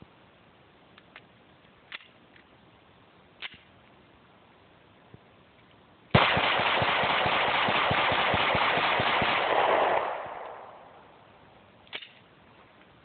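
Sig Sauer SP2022 9mm pistol rapid-fired to empty its magazine: a sudden string of shots about four seconds long, so fast and loud they run together, then fading. A few faint clicks come before it and one after.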